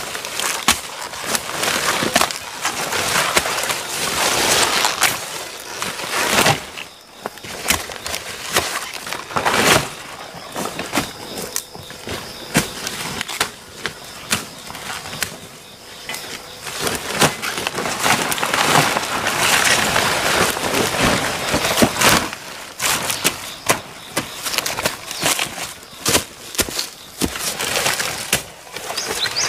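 Leaves and undergrowth rustling and stems snapping as banana plants are cut and handled, with scattered sharp knocks and chops from a machete.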